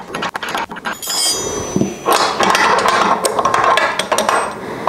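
Steel tools and a Motion Pro bearing installation tool clinking and clattering against a motorcycle's steering head as the tool is worked and taken out after pressing in a steering-head bearing. Scattered clicks, a ringing metallic clink about a second in, then denser clattering from about two seconds.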